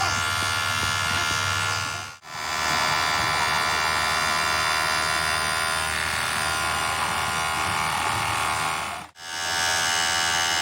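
Workshop machinery running with a steady electric buzz. It cuts out briefly twice, about two seconds in and near the end.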